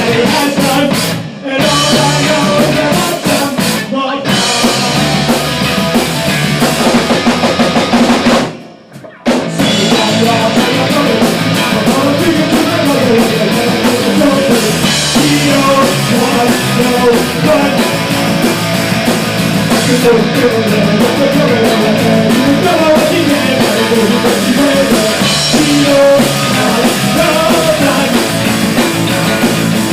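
Rock band music driven by a drum kit, with snare, bass drum and rimshots. The music cuts out for under a second about eight and a half seconds in, then comes back in at full level.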